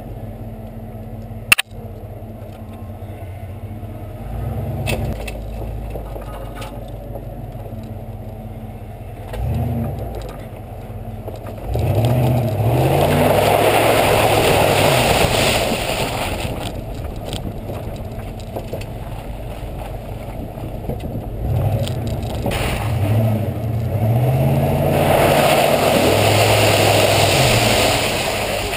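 1992 Ford F150's V8 engine pulling the truck slowly along a muddy trail, revving up twice. Each rev brings a loud spell of mud and water splashing up from the tyres, heard from a camera mounted outside the cab. A single sharp knock comes about a second and a half in.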